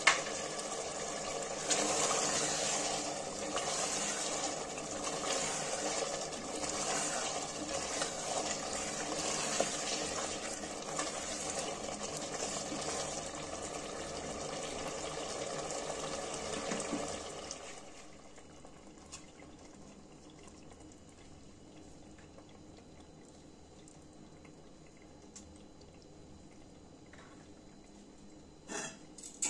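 Mutton gravy sizzling and bubbling in hot oil in a pot, a dense crackle for about seventeen seconds, then dropping suddenly to a faint hiss. A few light clicks come near the end.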